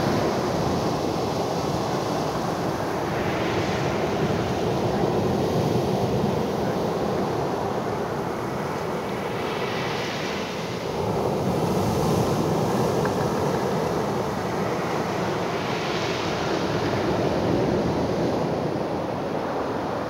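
Black Sea surf breaking and washing up onto a sandy beach, swelling and easing every few seconds.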